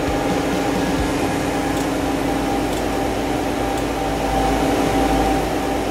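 Car engine idling: a steady, even hum.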